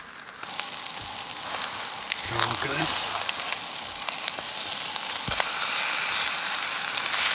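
Food sizzling in a hot frying pan on a camp stove while a wooden spatula stirs it, with small scraping clicks. The sizzle grows louder as it goes.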